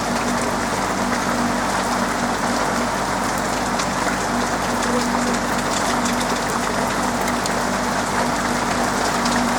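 Steady rain falling on a roof, with scattered sharp ticks of single drops over the even patter. Underneath runs a low hum that fades in and out.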